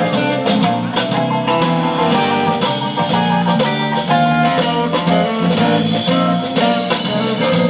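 Live band playing an instrumental passage on electric guitar, bass guitar, drum kit and keyboard, with a steady drum beat.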